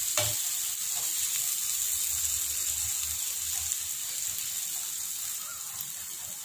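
Mashed raw-banana stir-fry (vazhakkai podimas) sizzling in oil in a kadai as it is stirred with a slotted spatula: a steady hiss that eases a little near the end.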